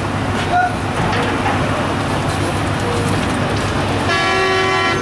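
Steady din of idling engines and distant voices at a busy ferry terminal. A vehicle horn sounds once, held for about a second near the end.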